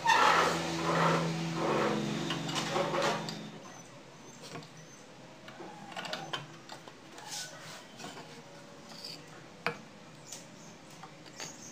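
A dog barking repeatedly in the background for the first few seconds, then quiet handling sounds: faint taps and rubbing of paper and wood as a scroll saw blade is threaded through a small wooden disc.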